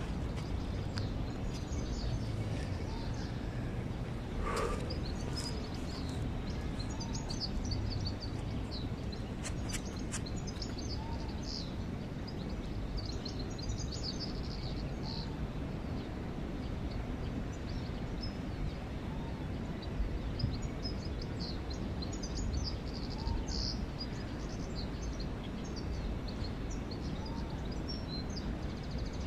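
Small birds chirping on and off over a steady low background rumble.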